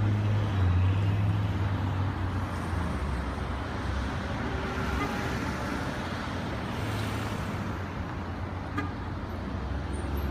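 City street traffic at night: a steady low engine rumble and road noise from cars on the street.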